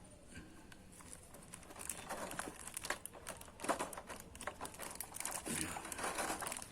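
Plastic packaging crinkling and rustling as small action-figure accessories in plastic bags are handled, with irregular clicks and crackles; it picks up about a second and a half in and grows louder.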